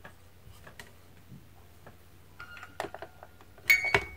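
Light handling noises on a tabletop: scattered faint clicks and taps, then a louder clatter with a short ring near the end as a wooden rolling pin is set down on the table.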